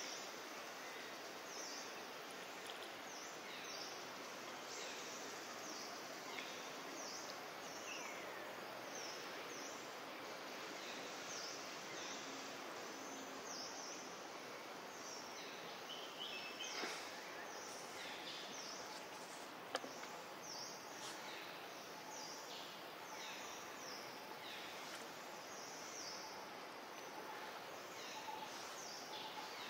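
Faint outdoor ambience: a steady hiss with frequent short, high chirps from small birds, and a single sharp click about twenty seconds in.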